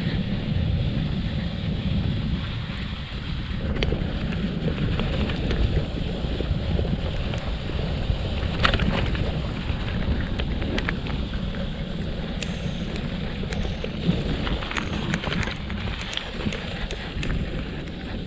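Wind buffeting the microphone over the low rumble of a bicycle riding along a rough forest trail, with occasional sharp clicks and rattles.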